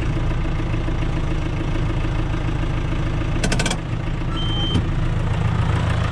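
Massey Ferguson 5440 tractor's four-cylinder diesel engine running at low speed while the tractor is eased a short way forward, with a brief clatter about three and a half seconds in.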